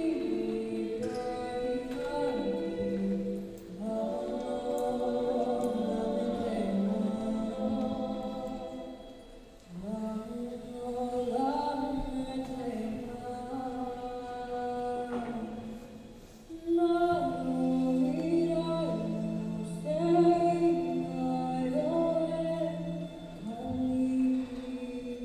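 Choir singing held chords in slow phrases, with short breaths between phrases; a steady low note is held underneath in the second half.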